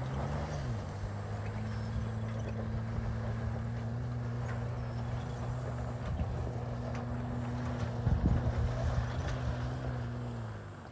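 Chevrolet Colorado ZR2 Bison pickup's engine pulling steadily in four-low as it crawls up a steep slope, with tyres crackling over loose gravel and dirt. The engine note swells briefly at the start, a louder low rumble comes about eight seconds in, and the engine note fades away near the end.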